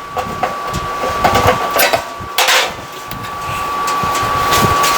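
Metal clicks, knocks and scraping as the last screw holding a clothes dryer's drum to its shaft is worked out and the drum shifts, with a louder scrape about two and a half seconds in.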